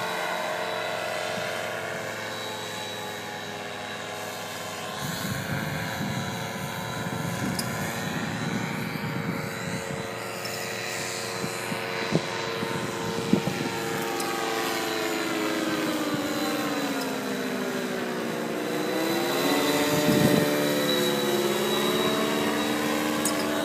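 Paramotor engine and propeller droning steadily as the powered paraglider flies over, its pitch sliding down and then back up again in the second half.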